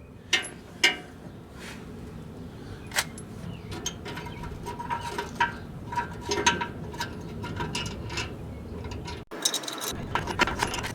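Light metallic clicks and scraping as a bolt and washer are worked by hand into a threaded bracket inside a pickup truck's frame. The sound breaks off briefly about nine seconds in.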